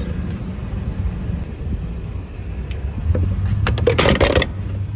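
Vehicle running with a steady low rumble, and a brief burst of rattling about three and a half seconds in.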